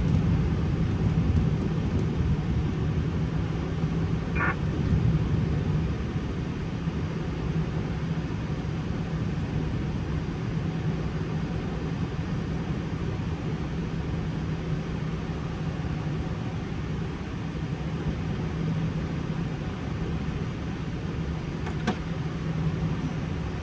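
Steady flight-deck noise of an Airbus A320 taxiing: engines at idle and cockpit hum with a low steady drone, easing a little in the first few seconds. A short faint blip about four seconds in and a sharp click near the end.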